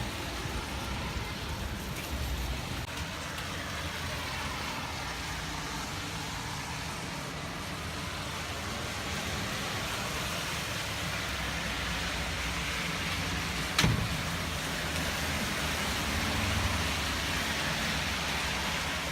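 Steady road traffic noise, a continuous hiss with a low rumble that swells slowly past the middle. One sharp click about fourteen seconds in is the loudest moment.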